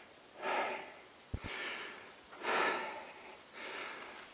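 A man breathing hard close to the microphone: heavy breaths about a second apart, with one short knock about a second in.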